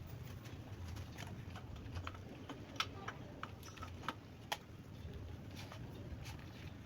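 Scattered light clicks and taps, a few sharper ones near the middle, over a low steady hum.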